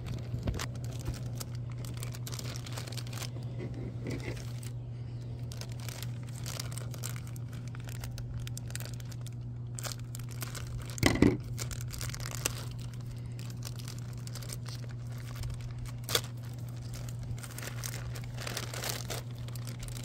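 Thin plastic packaging crinkling and tearing as a sealed toy bag is worked open by hand and cut with scissors, with one louder burst about halfway through. A steady low hum runs underneath.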